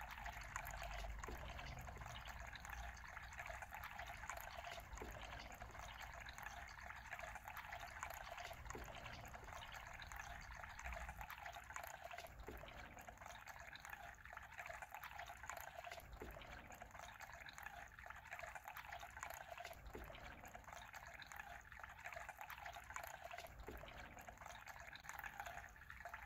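Faint, steady background hiss like trickling water, with a soft tick about every four seconds.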